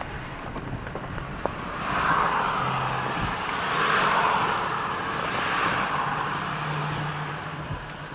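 Car tyres hissing and splashing through standing water on a flooded road, heard from inside the vehicle, with a low engine hum underneath. The splashing swells about two seconds in and again around four seconds, then eases off.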